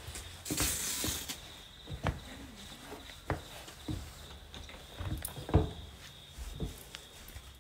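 Slow, soft footsteps, dull thumps about once a second, with a brief rustle about a second in and a faint steady hum underneath.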